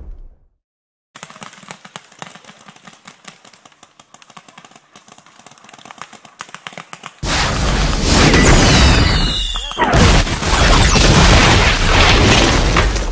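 Faint background sound with scattered small pops, then about seven seconds in a sudden, very loud explosion sound effect from a phone FX app, with whistling streaks falling in pitch, followed about three seconds later by a second loud blast that fades out.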